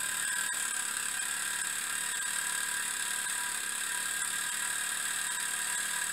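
Miniature three-cylinder steam engine running steadily under steam, with a constant high hiss.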